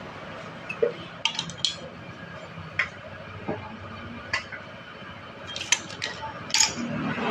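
Metal tools and water pump parts clinking and tapping as they are handled, about a dozen irregular sharp clicks.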